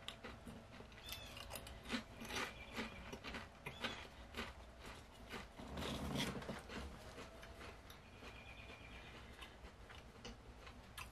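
A person biting into and chewing crisp potato chips: irregular, faint crunching clicks, a little fuller about six seconds in.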